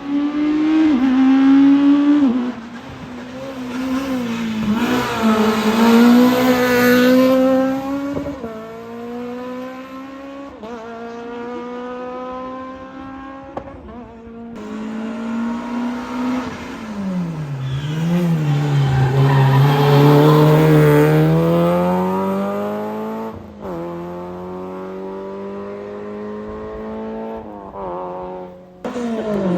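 Race cars on a hill climb accelerating hard past the microphone. The engine pitch climbs through each gear and drops back at every shift, with the sound cutting abruptly between separate passes.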